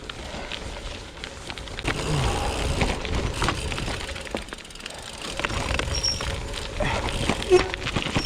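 Merida Silex gravel bike riding over rough gravel: tyres crunching on loose stones, with steady rattles and knocks from the bike over the bumps and wind noise. It gets a little louder about two seconds in.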